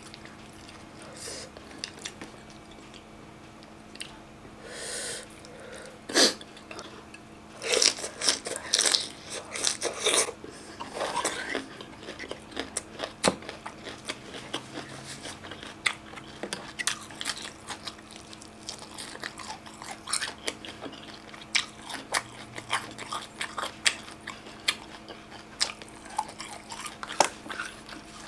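Close-miked chewing and crunching of raw green mango salad (somtam) with long beans, with many small wet mouth clicks and smacks. A run of louder crunches comes about six to twelve seconds in.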